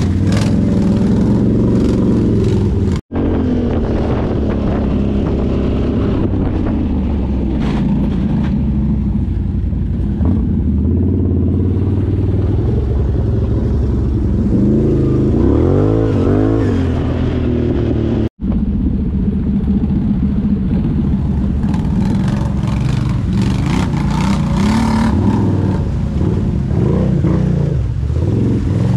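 ATV engine running under load on a muddy off-road trail, revving up and down, with a rise and fall in pitch around the middle and scattered clatters. The sound cuts out abruptly twice, briefly.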